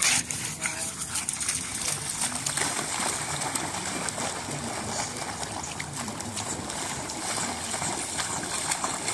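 Two pugs splashing as they run and paddle through shallow floodwater, a continuous sloshing of water.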